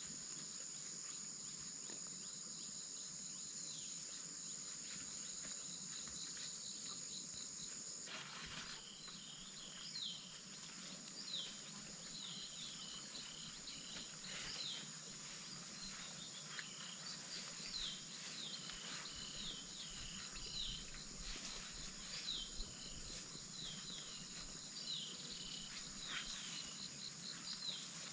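Insects in the vegetation: a steady high-pitched drone that cuts off about eight seconds in, followed by short high chirps repeated in quick runs.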